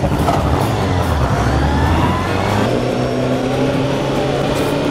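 Honda CBR600's inline-four engine pulling away and accelerating, its note changing about halfway through and then running steady.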